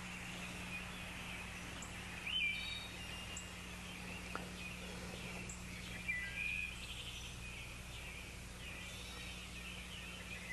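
Birds chirping now and then over a steady low hum, with slightly louder chirps about two and six seconds in.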